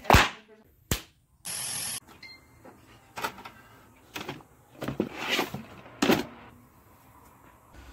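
A series of sharp knocks and plastic clacks: a toy magnet clock knocking against a wall, the loudest, then plastic game cases clacking as they are pulled from a shelf. A short burst of steady hiss comes about one and a half seconds in.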